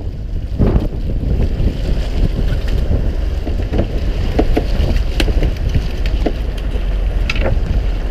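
Wind buffeting the microphone aboard a fishing boat at sea, a steady low rumble, with a few short clicks and squeaks scattered through it.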